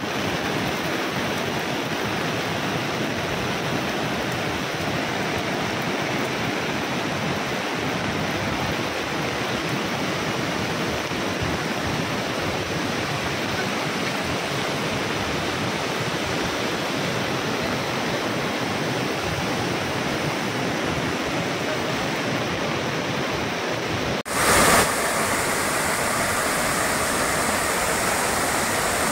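Steady rush of fast-flowing muddy floodwater. About 24 seconds in it breaks off for an instant and resumes slightly brighter, as the water pours in sheets down a stepped embankment wall.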